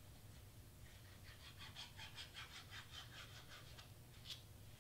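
Faint, quick, rhythmic scratching, about six strokes a second, as the tip of a squeeze bottle of craft glue is worked over cardstock, then a single soft click near the end.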